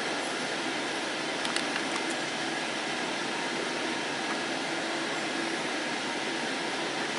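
Steady, even hiss of background room noise, with a few faint clicks about one and a half to two seconds in.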